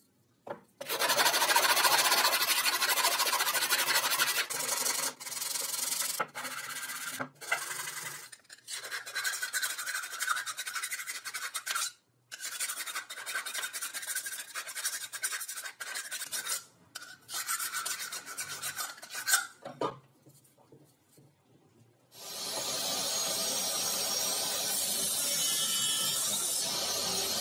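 A hand file rasping back and forth on a small block, in runs of strokes broken by short pauses. Near the end a table saw starts up and runs steadily.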